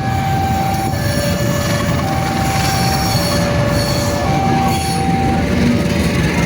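Railway level-crossing warning alarm sounding a two-tone high–low signal, each tone lasting about a second, warning that a train is coming. Under it, a train passes with loud rumble and squealing from its wheels.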